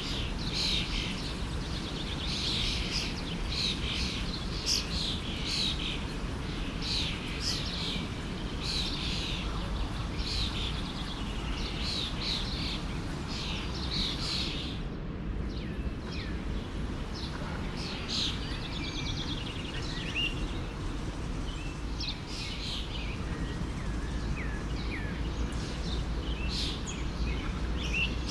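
Several songbirds chirping and calling over and over above the steady rush of a forest stream. The calls come thickly through the first half, stop briefly about halfway, then come more sparsely.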